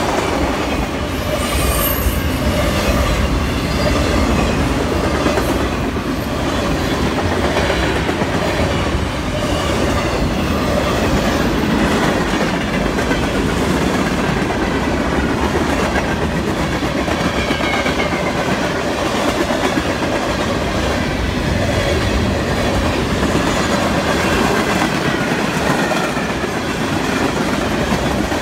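Freight cars of a mixed freight train rolling steadily past: a continuous rumble with wheels clacking over rail joints and faint wheel squeals at times.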